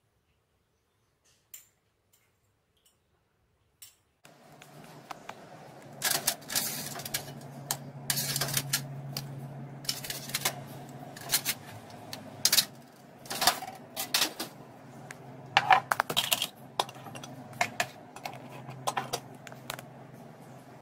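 Irregular sharp clicks and clatters of hard kitchen items being handled, over a steady low machine hum that starts about four seconds in.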